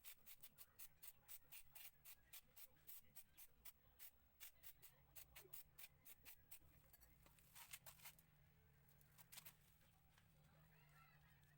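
A series of light, sharp clicks, about four a second, that thin out to a few scattered clicks after about eight seconds.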